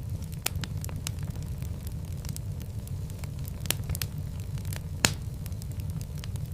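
Wood fire burning in a fireplace: a steady low rumble with frequent sharp crackles and pops, one louder pop about five seconds in.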